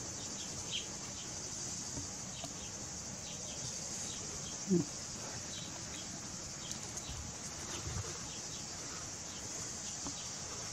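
Steady high-pitched drone of insects with faint scattered bird chirps, and one short low call about halfway through.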